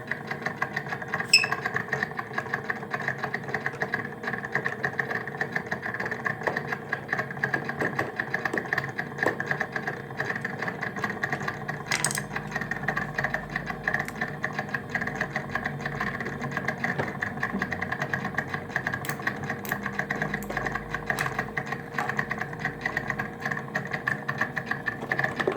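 A Daewoo refrigerator's cooling-fan motor runs with a steady hum and a fast, uneven rattle of vibration. The motor is worn out and needs replacing; its vibration has already shaken off the fan blades. A single sharp knock comes about twelve seconds in.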